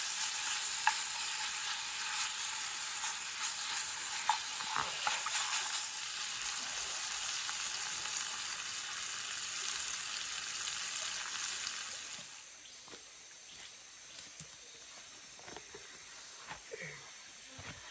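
Beef bulgogi with onions sizzling in a small frying pan on a portable gas-canister stove, with chopsticks stirring and clicking against the pan. The sizzling stops about twelve seconds in, leaving a quieter background with a few small knocks.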